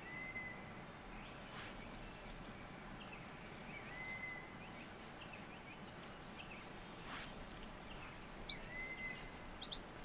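Faint outdoor ambience with birds calling: a short, level whistle repeated about every four seconds, a few soft chirps, and several sharp high chirps near the end.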